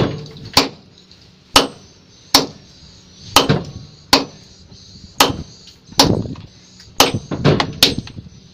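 Two sledgehammers striking a 35 cm square precast concrete pile in turn, about a dozen sharp blows at roughly one a second, coming closer together near the end, some ringing briefly. The concrete is being broken up to cut the pile.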